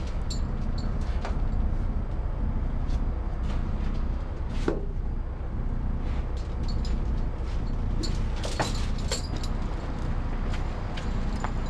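Footsteps on concrete stairs and the clink of a heavy metal chain being handled, a few sharp knocks and clicks, with a cluster near the end. Underneath runs a steady low rumble of background noise on the camera microphone.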